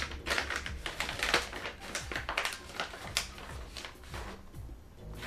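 Plastic vacuum-sealer bag crinkling and rustling in irregular crackles as brisket is pushed into it by gloved hands, thinning out near the end.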